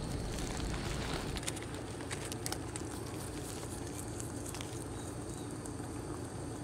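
Rabbit chewing fresh leaves close to the microphone: quick crisp crunching clicks, thickest in the first half, over a faint steady hiss.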